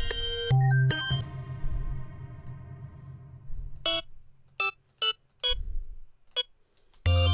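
Synthesizer tones from a Serum patch in FL Studio. A beat plays briefly and a low bass note rings out and fades. Then short single synth notes sound one at a time as notes are auditioned while being drawn into the piano roll, and the beat starts playing again near the end.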